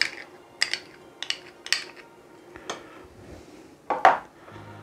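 A spoon clinking and tapping against a bowl in a series of short sharp clicks while sauce ingredients are added and mixed, with a louder double knock near the end.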